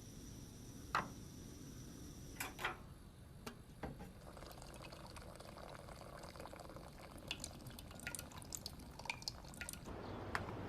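Scattered small clicks and drips of liquid, with a sharper click about a second in and a quick run of small ticks in the last few seconds.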